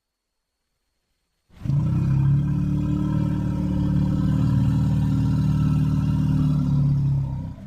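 Archaeobelodon creature sound effect: a long, low, steady rumbling call that starts about a second and a half in, holds an even pitch for about six seconds, then stops.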